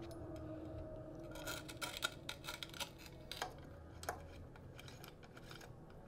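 Light clicks and taps of a road handlebar being seated in its stem and a hex key working the stem faceplate bolts, in a quick cluster from about a second and a half to three and a half seconds in, then a few single clicks.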